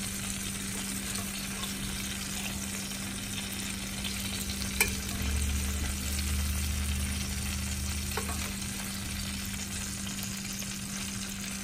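Hot butter and beef-fat drippings sizzling in a roasting pan as a metal spoon bastes them over a bone-in ribeye steak, with a single sharp click about five seconds in, over a steady low hum.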